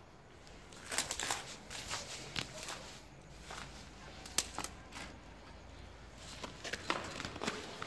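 Slow footsteps scuffing and crunching on a gritty, rubble-strewn concrete floor, with sharp crunches at irregular intervals.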